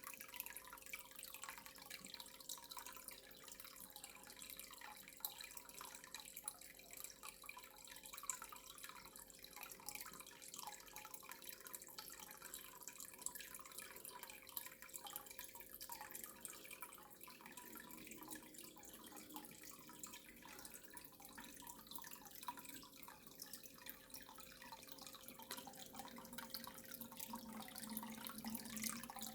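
Faint water from a tap running and dripping into a sink, a steady patter of small drips and splashes, with a thin steady hum underneath.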